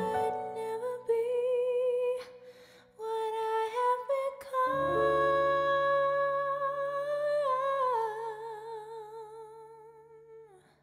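Closing bars of a slow ballad sung by a woman with piano: after a few short phrases she holds a long final note with vibrato over a sustained chord, steps down near the end, and the song fades out.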